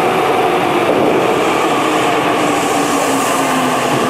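Tokyu Ikegami Line electric train running in on the opposite track, with loud running and wheel noise. Its motor tone falls slowly in pitch from about two seconds in as it slows for the station.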